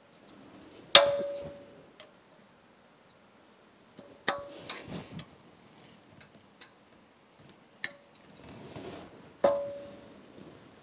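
Hand tool clinking and scraping against metal parts inside a milling machine's cast-iron column: two sharp clinks that ring briefly, about a second in and near the end, with lighter ticks and scraping between.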